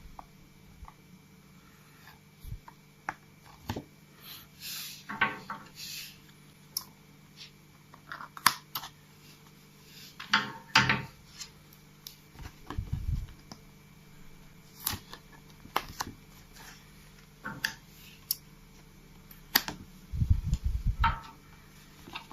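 Paper and double-sided tape being handled for a paper model: scattered rustles, crinkles and small clicks and taps, with a few dull thumps near the middle and a longer run of them near the end.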